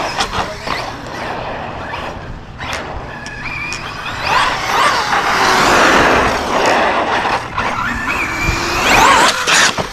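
Arrma Kraton 6S RC monster truck running hard: the brushless motor and drivetrain whine up in pitch as it accelerates, over a rushing noise. It is loudest through the middle and surges again near the end.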